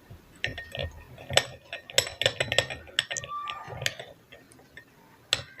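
A spoon clinking and tapping against a small bowl in quick, irregular strokes while stirring a honey and spice paste.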